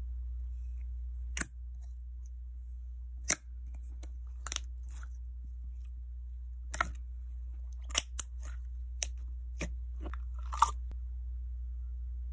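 Jelly slime being poked and pressed with fingers in a clear jar: irregular sharp, wet clicks and squishes a second or two apart, over a steady low hum.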